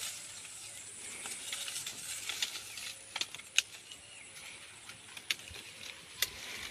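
Rustling of mango-tree leaves and branches, with several sharp snaps or clicks as the fruit and twigs are handled.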